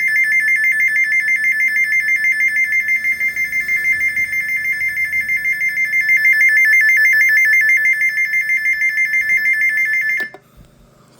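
Spectra First Alert SFA1150 weather radio sounding its alert test: a loud, high-pitched two-tone alarm that pulses rapidly and steadily, then cuts off suddenly about ten seconds in.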